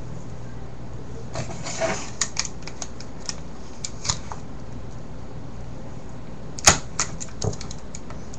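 Scattered clicks and taps of plastic 4x4 Rubik's cube pieces being handled and turned, with a short rustle about a second and a half in. A sharper, louder click comes about two-thirds of the way through.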